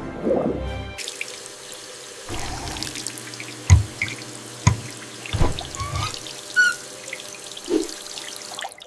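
Water from a sink tap running, with drips and plops falling into the basin and a few short rising bubbly blips. Music stops about a second in.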